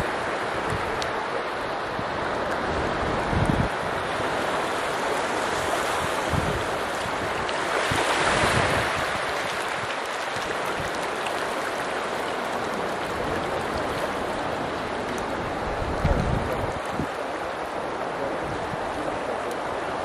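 Surf washing steadily on the beach, swelling louder about eight seconds in as a wave comes up, with a few gusts of wind thumping on the microphone.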